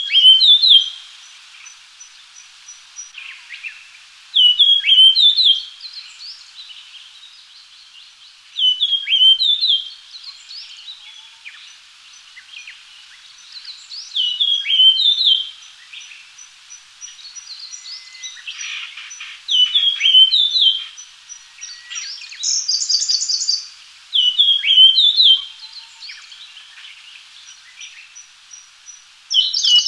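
Japanese grosbeak singing: a short phrase of clear whistled notes, about a second long, repeated roughly every five seconds, seven times.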